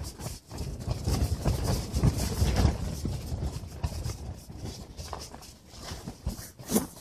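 Strong wind buffeting an ice-fishing shelter's fabric walls, an irregular fast clatter of flapping over a low rumble of wind on the microphone. A sharper knock comes near the end as the camera is moved.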